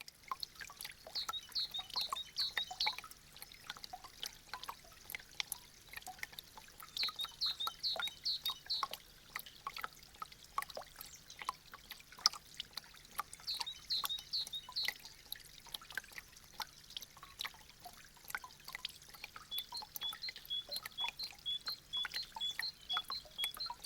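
Meltwater dripping from thawing icicles: many irregular drops ticking and splashing, with a light trickle. Runs of short high chirps come in three times, and an even string of about two chirps a second starts near the end.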